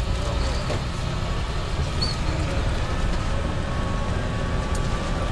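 Tour bus driving along, heard from inside the cabin: a steady low engine and road rumble.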